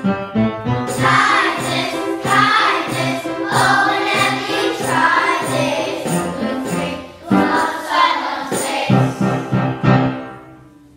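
A class of young children singing together in unison, accompanied by a piano; the song ends and dies away about ten seconds in.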